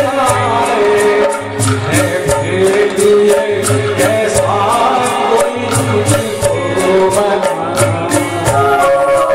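Live band playing a Hindi film song: a male voice singing into a microphone over keyboards, electric guitar and a steady percussion beat.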